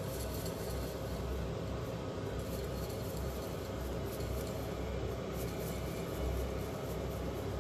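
Steady background hum and hiss of room noise, with a few faint ticks.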